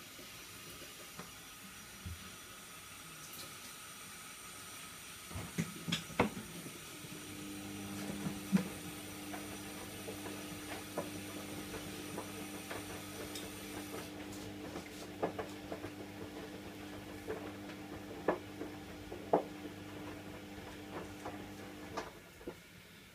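Kitchen tap turned on about seven seconds in, water running into the sink with a steady low hum while things are washed under it, with scattered clicks and knocks. The water stops near the end.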